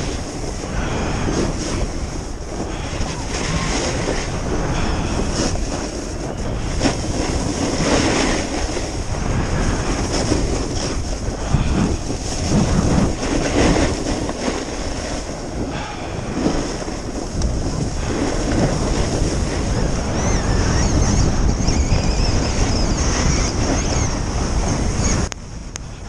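Wind rushing over the microphone together with the scrape and hiss of edges sliding across chopped-up, tracked snow during a descent down a ski run, swelling and easing with each turn. The noise drops suddenly just before the end.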